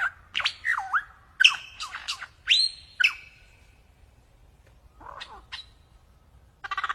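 Lyrebird singing a varied string of sharp whistles, sweeping notes and clicks, then falling quiet before a few more short calls. Near the end a fast, rattling run of repeated notes begins.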